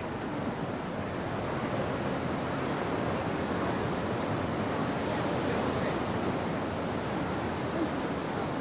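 Ocean surf washing over rocks and onto the shore, a steady rush.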